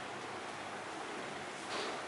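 Steady hiss-like noise, with one short rustle near the end.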